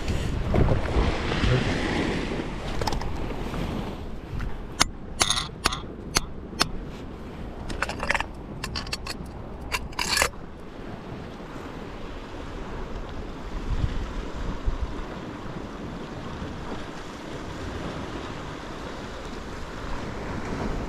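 Wind on the microphone and the sea washing against the rocks run throughout. Partway through comes a run of sharp clinks and knocks as a metal rod holder is worked into a crack in the rock.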